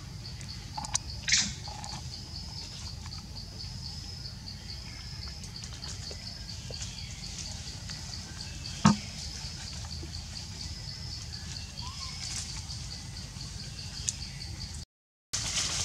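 Forest ambience dominated by an insect's steady, rapidly pulsing high trill over a low rumble. A few sharp clicks or snaps come through, the loudest about nine seconds in, and the sound cuts out briefly near the end.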